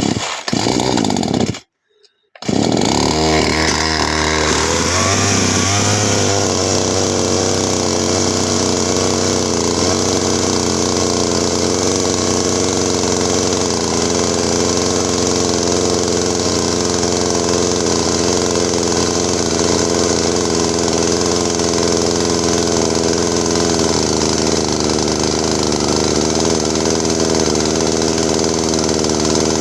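Poulan two-stroke chainsaw, after a short break, coming up to speed over a few seconds with a rising pitch, then running steadily at high revs.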